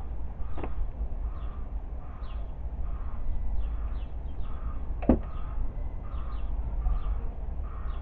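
Two sharp clicks from hands working the ignition leads at the distributor cap, a faint one under a second in and a louder one about five seconds in, over a steady low rumble. A bird calls over and over, about twice a second.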